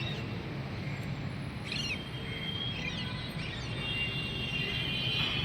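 Steady outdoor background noise with small birds chirping: a quick cluster of chirps about two seconds in, then thin, high whistled notes.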